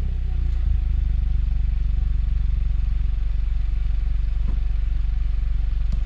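Car engine with a newly fitted aftermarket exhaust system. The revs fall back in the first moment, then it idles steadily with an even pulse. The exhaust note is moderate, not very loud.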